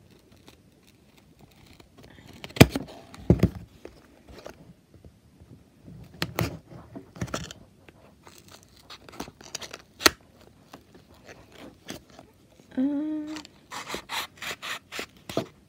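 A small cardboard toy box being handled and worked open by hand: scattered scrapes, clicks and knocks of fingers and scissors on the cardboard and its tape, with a quick run of rapid scratchy strokes near the end.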